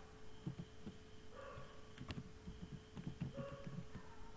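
Faint typing on a computer keyboard: short runs of quick keystrokes, over a steady electrical hum.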